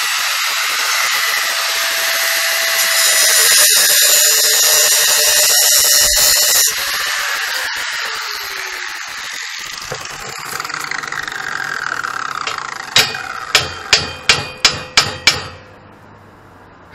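Handheld angle grinder grinding a steel frame tube, then lifted off the work so the disc runs free and winds down with a slowly falling pitch over a few seconds. Near the end come about eight sharp metallic knocks in quick succession.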